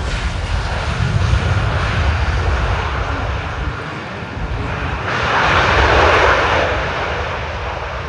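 Aircraft engine roar from a plane flying past, over a continuous low rumble. It swells to its loudest about six seconds in, then fades.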